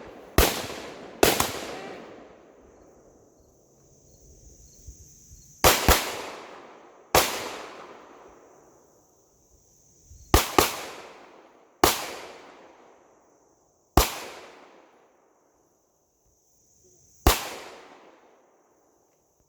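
Gunshots fired at irregular intervals: about ten sharp reports, some in quick pairs, each followed by a long fading echo. A steady high chirring of insects runs underneath.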